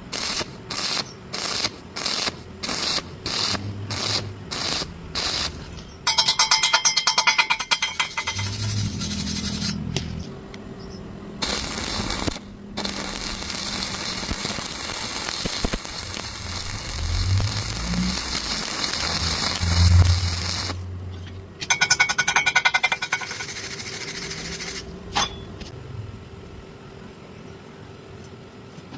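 Stick welding arc crackling and hissing. It starts in short stop-start pulses about twice a second, then runs in long continuous stretches broken by brief gaps.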